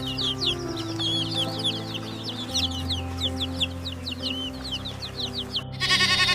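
Birds peeping in quick, high chirps over background music, which the tagger hears as chickens. Near the end an abrupt cut brings in a loud, wavering bleat.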